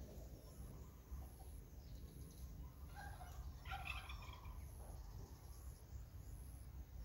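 A bird, likely domestic fowl, calls once about three seconds in: a short run of rapid, broken notes lasting about a second and a half. A faint, steady low rumble runs underneath.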